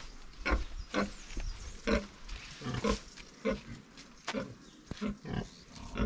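A farm animal making short, repeated calls, about two a second and unevenly spaced.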